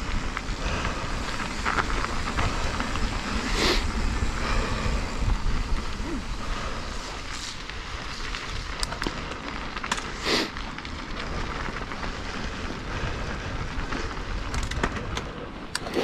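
Mountain bike rolling along a dirt trail: steady tyre and drivetrain noise with wind rumbling on the action camera's microphone, and a few sharp knocks as the bike rattles over bumps, the clearest about 4 and 10 seconds in.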